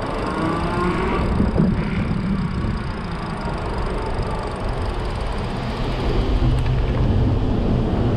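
Super73 RX e-bike's rear hub motor under hard throttle, a rising whine about a second in over wind and tyre noise, with the grinding from the motor that is the sign of a motor fault.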